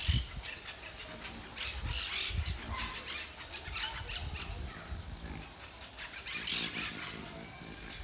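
Monk parakeets giving harsh, screechy squawks from their stick nest: several short calls, the loudest about six and a half seconds in, over a low rumble.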